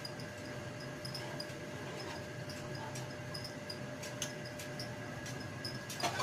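Fish frying in an open pan with a steady sizzle and small crackles, then a spatula knocks against the pan about six seconds in.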